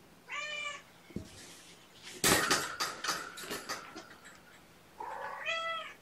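A kitten meowing twice, one short high mew near the start and another near the end, as it is roused and handled. About two seconds in comes a burst of loud rustling and clicking lasting over a second.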